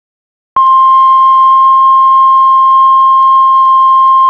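Heart monitor flatline: one long, loud, steady beep tone that starts about half a second in and holds without a break, the monitor's signal that the heart has stopped.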